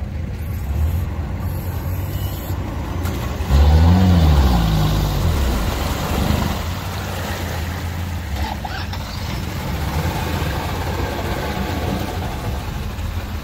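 Toyota Land Cruiser 70-series pickup's engine running, revving up and back down about three and a half seconds in as the truck plunges off the bank into deep muddy water, then running steadily as it wades through with water sloshing around it.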